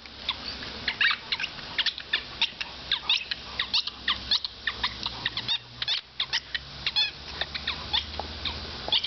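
A dog's pink rubber squeaky ball being chewed, giving rapid, irregular short high squeaks, several a second.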